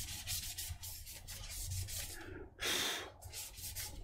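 A cloth wiping and rubbing over the aluminium palm rest and empty trackpad bay of a MacBook Pro, a run of quick scrubbing strokes. About two and a half seconds in comes one louder, brief rustle.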